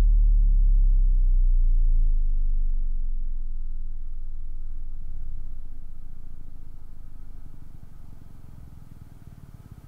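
KEF KC62 subwoofer's dual 6.5-inch force-cancelling drivers playing a test tone from a tone generator that sweeps down from about 37 Hz towards 11 Hz. The deep tone falls in pitch and grows steadily fainter as it nears the bottom, turning into a choppy flutter near the end: a test of KEF's claimed 11 Hz extension.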